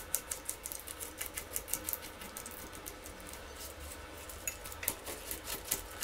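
Kitchen knife finely chopping Malabar spinach leaves on a wooden cutting board: quick light taps, about six to eight a second, slowing for a moment about halfway before picking up again.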